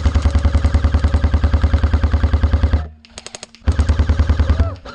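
Airsoft rifle firing full-auto in long bursts, a rapid, even rattle of shots. It stops for under a second about three seconds in, with faint distant fire, then starts again.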